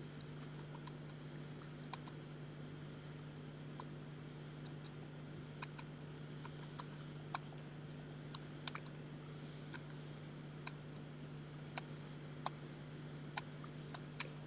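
Typing on a computer keyboard: faint, irregular key clicks, about one or two a second, over a steady low hum.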